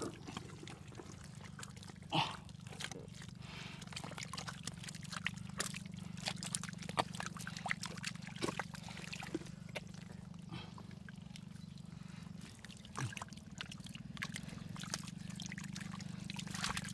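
Muddy water splashing and trickling in many short irregular splashes and squelches, over a steady low hum.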